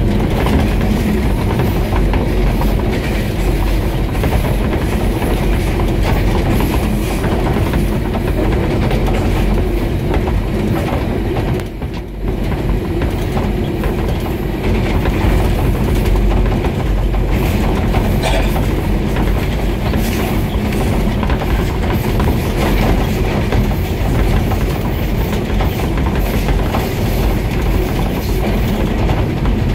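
ZCU-20 diesel-electric locomotive running along the line at speed. The engine and the wheels on the rails make a steady, loud running noise that dips briefly about twelve seconds in.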